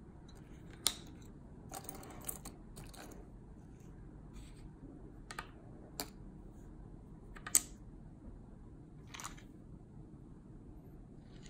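Sharp plastic clicks and taps as the pieces of a key fob (case halves, circuit board, rubber button frame) and a CR2032 coin-cell battery are handled and set down on a wooden table, with a brief rustle near the start and a short scrape late on; the sharpest click comes about two-thirds of the way through.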